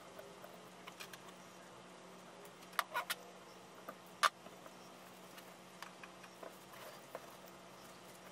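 Small clicks and taps from hands handling pre-tinned wires and component leads on a wooden crossover board, with a quick cluster of louder clicks about three seconds in and one sharp click just after four seconds, over a faint steady hum.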